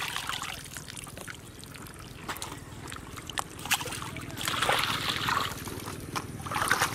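Water sloshing and trickling as a plastic basket of mud is swished and rinsed in shallow muddy water, with muddy water draining through the basket's holes. There are louder splashes about halfway through and again near the end.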